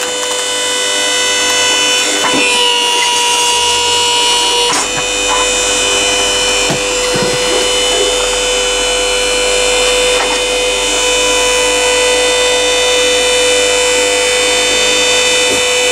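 The 220 V electric motor and hydraulic pump of a Balfor SBF 800 8-ton vertical log splitter running with a steady whine, its tone shifting for a couple of seconds as the ram presses a log onto the V-shaped wedge. A few short knocks come from the wood.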